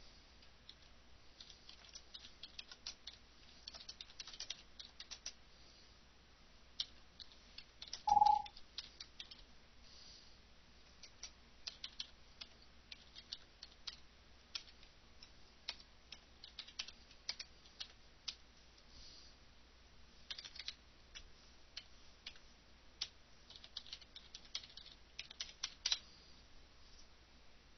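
Computer keyboard typing in irregular runs of key clicks, with a short tone about eight seconds in.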